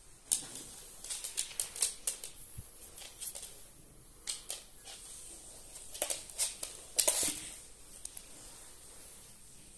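Close-up rustling and scratching of a Pembroke Welsh Corgi's fur right against the microphone: irregular clusters of short clicks and rustles, the loudest a little after seven seconds in, dying away about eight seconds in.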